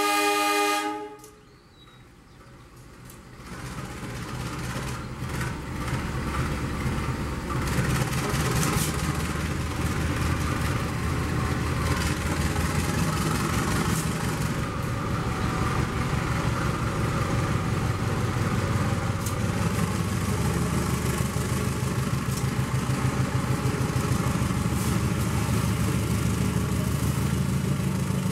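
A train horn sounding and cutting off about a second in, then a steady, pulsing engine rumble builds up within a few seconds and holds.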